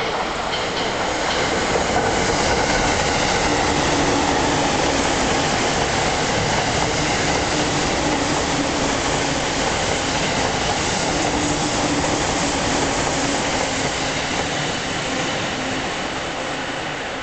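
Electric commuter train passing close by, its wheels running on the rails in a steady loud rush with a faint hum. The sound comes in suddenly and eases a little near the end.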